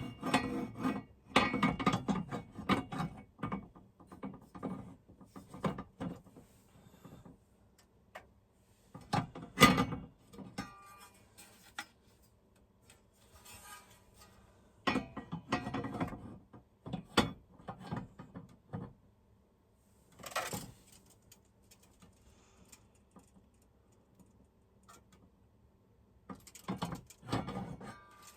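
Clatter, clicks and rubbing from a metal TV mount arm and its bracket being handled and fitted, in several short bursts with quiet gaps between.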